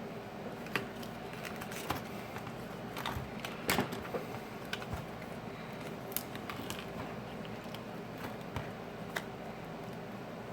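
Scattered small clicks and light scrapes of a business card and pry tools being worked under a phone's LCD backlight to separate the layers, with a louder cluster about three and a half seconds in, over a steady low hum.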